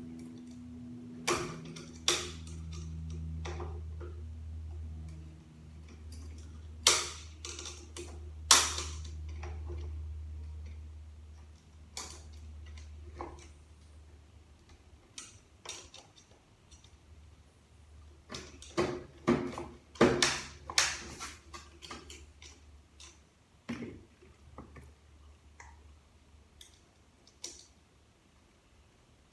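Scattered sharp metallic clicks and knocks of hand tools and transmission parts being worked during a teardown, loudest in a cluster about two-thirds of the way through. A low steady hum runs under the first part and fades out partway through.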